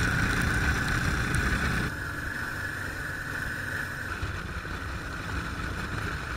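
Adventure motorcycle riding at speed on dirt forest tracks, heard from its onboard camera: steady engine and wind noise. The sound changes abruptly about two seconds in as the footage cuts to another stretch of track.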